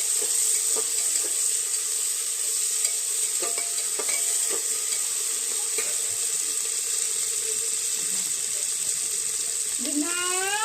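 Mutton sizzling as it fries in a pan, with the ground ginger, garlic and green chilli paste just added, and scattered clicks of a spoon stirring against the pan. A short rising voice-like sound comes near the end.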